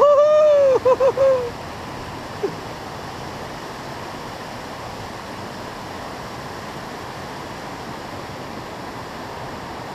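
Whitewater rushing steadily over the falls and rapids. In the first second and a half a man's voice sings a few drawn-out notes over it.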